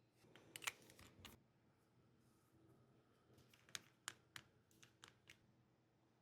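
Light clicks and a short rustle of unboxed craft-supply packaging being handled: a cluster of clicks with a rustle about half a second in, then a handful of separate sharp clicks a few seconds later.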